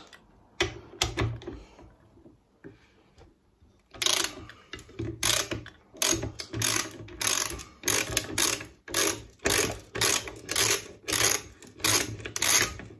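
Ratchet socket wrench on an extension bar, worked back and forth to undo a bolt. A few separate clicks come first, then after a short pause a steady run of ratcheting strokes at about two a second begins about four seconds in.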